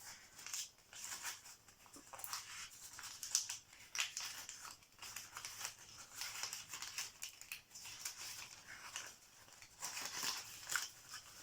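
Wrapping around a small boxed item being crinkled and torn open by hand: irregular crisp rustles and rips.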